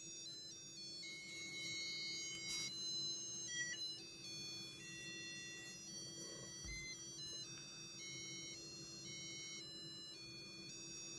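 Small speaker buzzer on a Santa circuit-board kit playing a thin electronic melody of beeping notes, driven by the kit's microcontroller after power-on. The tune stops shortly before the end.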